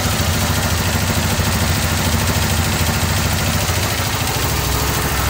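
Small gasoline engine of a 24-volt generator running steadily at about 2100 rpm, working a little harder under a load that has risen to 15 amps.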